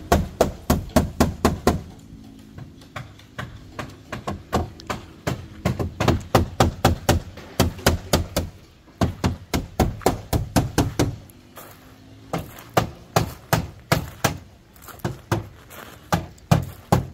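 Hammering on bamboo siding being fixed to a wall: quick, even blows, about four a second, in runs with short pauses between them.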